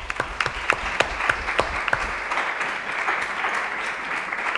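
Audience applauding: many people clapping at once, a dense, even patter of claps.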